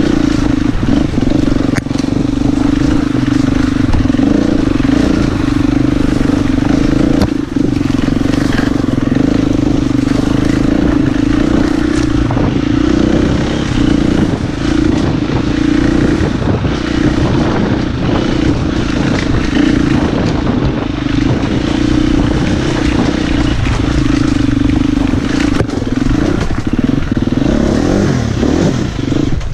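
Husqvarna FE 250 enduro bike's single-cylinder four-stroke engine running steadily under load on a rocky trail, with knocks and clatter from the wheels and suspension over stones. The engine note drops near the end as the bike slows.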